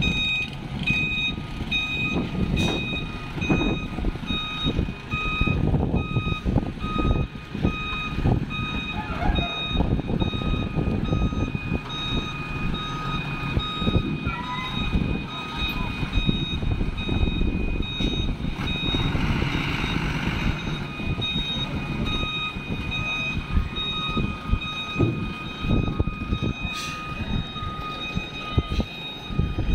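A cargo truck's reversing alarm beeping over and over as the truck backs up, over the low rumble of its diesel engine.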